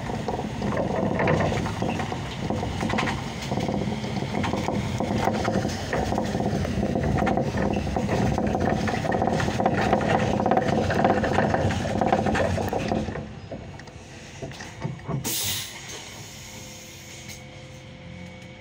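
Interior noise of a Solaris Urbino 18 III articulated city bus on the move, engine and road noise with a steady whine. About thirteen seconds in it drops off sharply as the bus slows, and a couple of seconds later comes one short hiss of compressed air.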